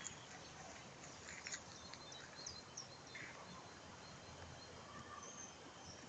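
Faint birdsong: scattered short, high chirps and calls from small songbirds, with a few soft crunches of footsteps on dry leaf litter.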